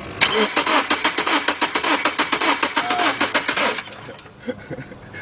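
Starter cranking the 2000 Subaru Impreza's 2.2-litre flat-four in an even, rapid rhythm for about three and a half seconds without the engine catching, then stopping. It is a compression test, and the cylinder under test shows zero compression, which the mechanic takes for a burnt valve.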